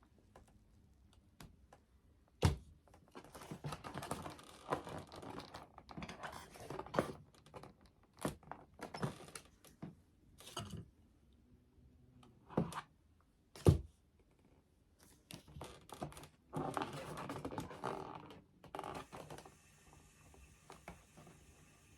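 Foam board panels being handled and pressed into place during hot-glue assembly: scattered rustling and light knocks, with two sharp thunks, one about two seconds in and another a little past the middle.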